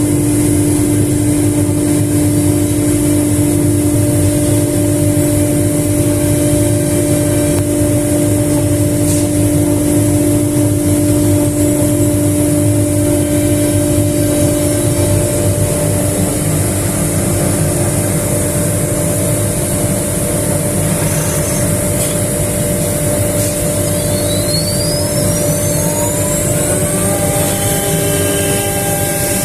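High-speed spindle of a 3-axis CNC router running with a steady whine over a broad rushing noise. Near the end a whine rises in pitch and settles on a new steady tone as the spindle speed changes.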